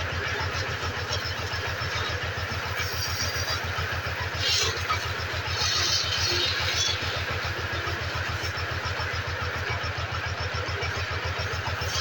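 Small motorcycle engine idling steadily with an even, fast beat, with a few short hisses about three to seven seconds in.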